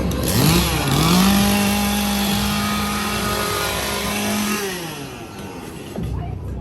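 Two-stroke chainsaw revved hard: the engine note climbs within the first second, holds steady at high revs for about three seconds, then drops back near the end.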